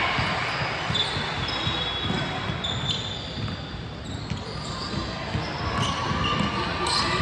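Basketball dribbled and bouncing on a gym court, with sneakers squeaking on the floor in short high squeals, mostly between about one and three seconds in and again near the end, over a murmur of players' and spectators' voices.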